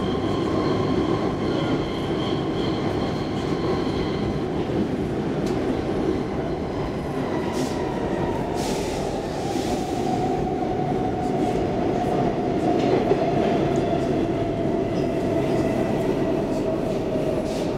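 Stockholm Metro C14 train running, heard from inside the car: a steady rumble of the wheels on the track. A whine slowly drops in pitch over the second half, and there is a brief hiss about halfway through.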